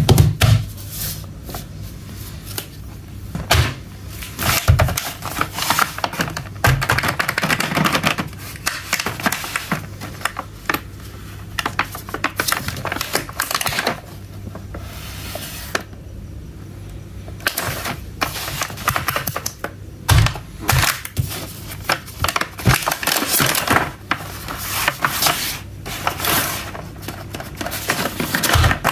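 Crinkling and crackling of a plastic blister pack on a cardboard backing card as it is handled and flexed, with many quick taps and clicks.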